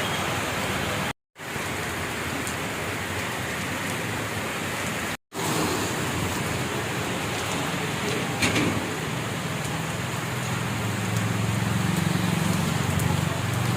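Heavy rain falling with a steady hiss, cut by two brief moments of silence about a second and about five seconds in, and a single knock past the middle.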